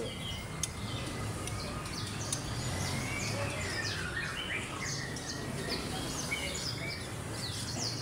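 Many caged songbirds chirping and calling over one another, in quick short chirps and whistled slurs, over a steady low background rumble.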